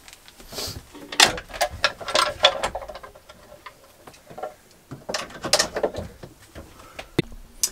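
Knocks, taps and clatter of a wooden engine-box cover panel being lifted off and set aside. The sounds come in two flurries of irregular clicks, with a single sharp click near the end.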